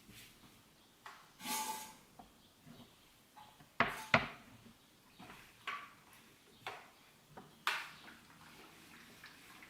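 Household objects being handled: a scattering of light knocks and clatters, with two sharp knocks close together about four seconds in and a brief rustle before them.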